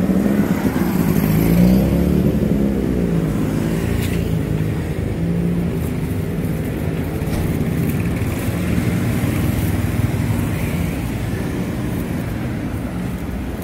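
Street traffic: the engines of passing motor vehicles running, with a wavering engine note that is loudest in the first two seconds, then a steadier engine drone.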